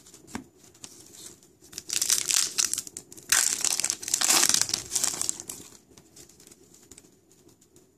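Crinkling, tearing plastic wrapper of an Upper Deck MVP hockey card pack being ripped open and crumpled, in two loud spells: from about two seconds in, then again from about three and a half seconds in, dying away around five seconds.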